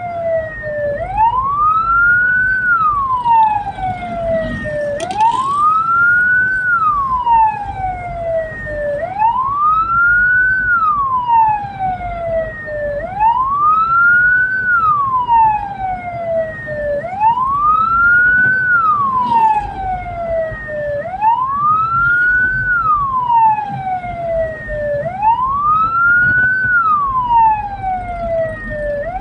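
Hearse's electronic siren wailing, rising and falling in pitch about once every four seconds, over the low rumble of the moving vehicle.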